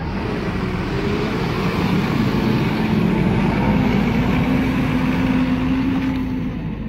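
Motor vehicle engine running loudly, its drone rising slowly in pitch, then easing off near the end.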